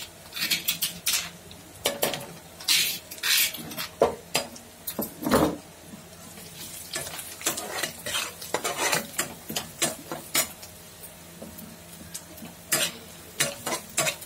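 Flat steel spatula scraping and stirring ground coconut, ginger and garlic masala in hot oil in a metal kadhai, in irregular strokes of metal on metal, with the masala sizzling lightly in the oil.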